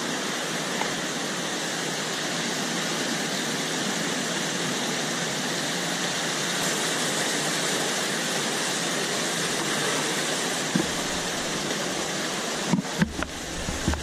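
Steady rush of a waterfall and mountain stream pouring over boulders, an even hiss at a constant level. Near the end, a few low thumps and knocks.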